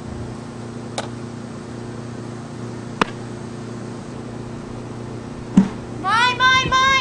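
A softball fielder's voice calling for a fly ball, three quick high-pitched rising calls near the end. Before it there is a steady low hum, with sharp clicks about one and three seconds in and a louder knock about five and a half seconds in.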